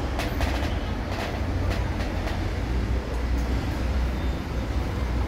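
Steady low background rumble, with a few light clicks in the first two seconds or so as cable connectors are handled and plugged in on a computer motherboard.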